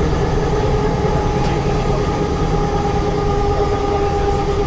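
Diesel railcar engine running steadily: a loud, even rumble with a constant droning hum at a fixed pitch.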